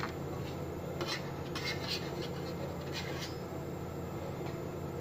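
Beaten eggs and milk cooking in a covered pan: a steady low hiss with a few faint crackles.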